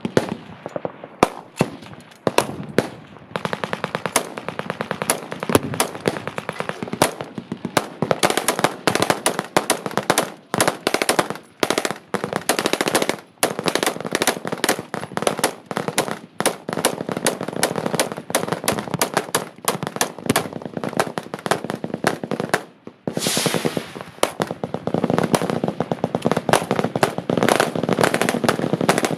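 Machine-gun fire: scattered shots at first, then long rapid bursts from several guns overlapping almost without a break, with one brief lull late on.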